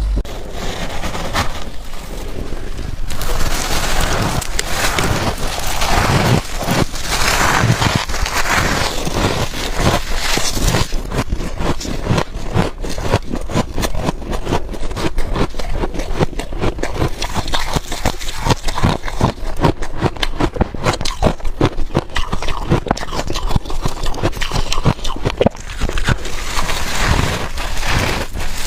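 Freezer frost being scraped up and crunched in the mouth: longer scraping strokes for the first ten seconds or so, then a dense run of crisp crunches, several a second.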